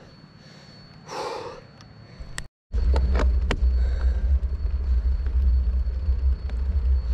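A single breathy exhale from the rider about a second in. After a brief dropout, loud low wind rumble buffets the action camera's microphone, which has wind reduction switched off, with a few clicks.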